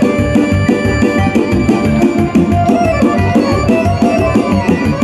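Live folk-style band music amplified through a large outdoor PA line-array system: accordion and electronic keyboard playing sustained melody over a steady drum beat.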